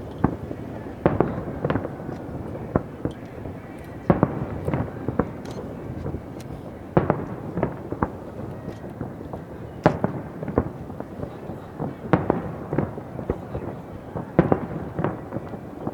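Aerial fireworks shells bursting one after another at irregular intervals, sometimes several a second, as a run of sharp booms and cracks.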